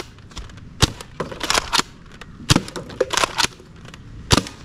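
Nerf Mega Cycloneshock dart blaster firing: sharp pops a second or two apart. Between them are lighter knocks of foam darts hitting cans and toppling them.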